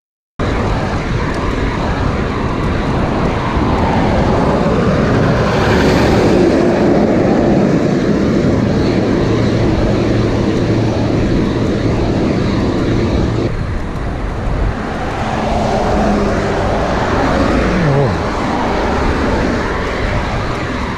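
Road traffic heard from a moving bicycle: a steady rush of wind on the microphone and tyre noise, with cars and trucks passing close alongside. Near the end one passing vehicle's engine note drops in pitch as it goes by.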